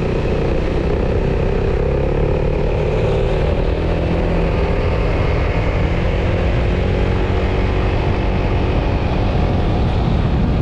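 Single-cylinder scooter engine running steadily while under way, its pitch sinking a little in the first few seconds and then holding, over a strong low rumble.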